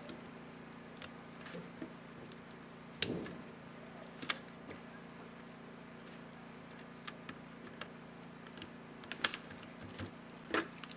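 Plastic keycap of the up-arrow key on an Asus X550C laptop keyboard being fitted and pressed: scattered sharp clicks at irregular intervals, the loudest near the end, over a steady low hum.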